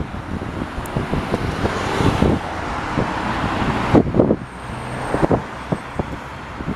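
Road traffic running past, with wind buffeting the microphone in repeated low gusts, strongest about four seconds in. No siren is heard.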